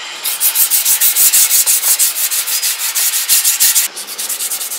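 120-grit sandpaper rubbed by hand over a black-painted motorcycle gas tank, scuffing off the paint in quick back-and-forth strokes several times a second. The strokes turn quieter about four seconds in.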